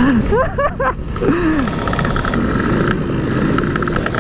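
Two-stroke motorcycle engines running on the move: the Yamaha F1ZR underbone's engine rises and falls in pitch in the first second or so, then a steady fast-pulsing two-stroke buzz from the group of motorcycles riding alongside, over a constant low rumble.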